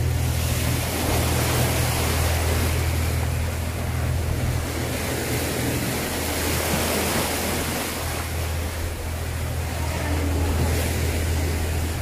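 Sea waves washing and breaking against rocks, a steady rush of surf, with wind rumbling on the microphone.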